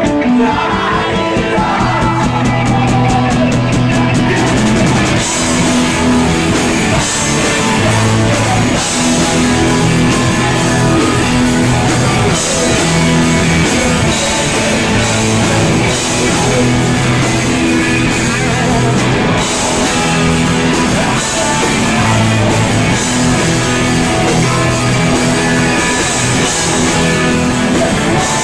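Punk rock band playing live and loud: distorted electric guitars, drum kit with cymbals, and a shouted-sung lead vocal.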